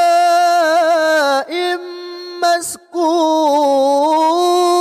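Male Quran reciter chanting in melodic tajwid style, drawing a vowel out into a long held note with wavering ornaments. About halfway through he breaks off briefly with a quick breath, then takes up a second long held note that dips and rises again.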